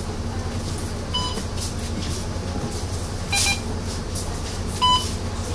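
Bus fare card reader beeping as boarding passengers tap their cards: a short beep about a second in, a brighter beep of a different tone a little past the middle, and another short beep near the end. Underneath runs the steady hum of the Mercedes-Benz Citaro's diesel engine idling at the stop.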